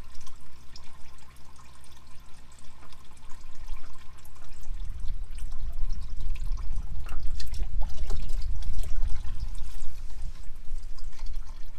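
Used motor oil trickling and dripping out of the oil filter housing as the old filter is unscrewed by hand, with light clicks from the filter. A low rumble builds about four seconds in.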